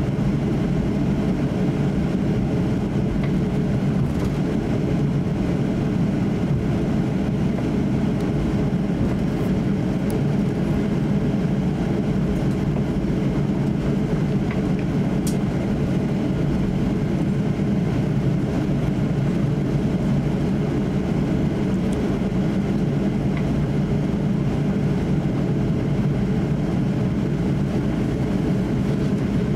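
Steady low rumble inside the cabin of a Boeing 737-800 taxiing, its CFM56 jet engines at low taxi thrust.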